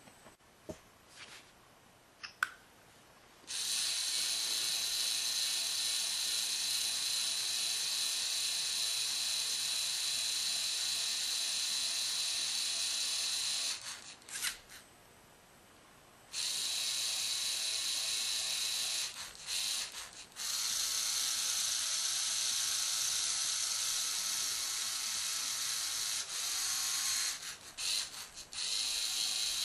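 LEGO Mindstorms NXT servo motors whining steadily as they drive the robot arm's gear train. The whine comes in a run of about ten seconds, stops briefly, then returns in several more runs broken by short pauses, with a few sharp clicks in the gaps.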